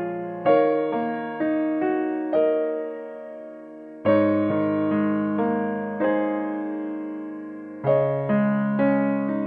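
Background piano music: slow, gentle chords and melody notes, each struck and left to fade.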